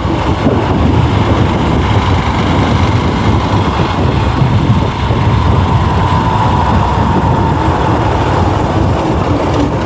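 Wind buffeting the microphone of a chest-mounted GoPro on a moving two-wheeler: a loud, low, fluttering rush.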